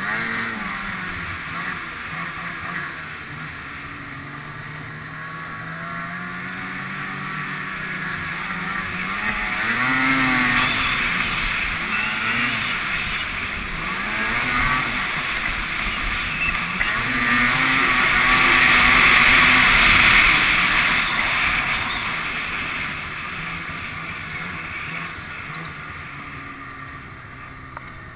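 Ski-Doo snowmobile engine running, its pitch rising and falling with the throttle. It grows louder to a peak about ten seconds in and a stronger one around twenty seconds in, then fades away as the machine moves off.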